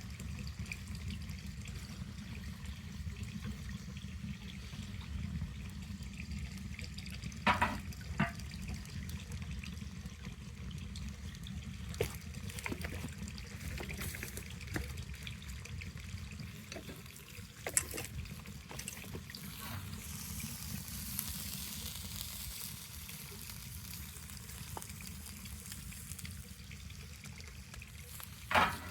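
Wood fire burning under a taiyaki pan: a steady hiss with a sharp crackle or pop now and then.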